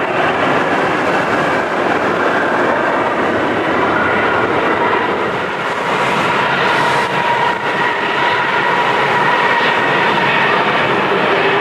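Airbus A320 jet engines at takeoff power: a loud, steady roar with faint whining tones coming in about halfway through.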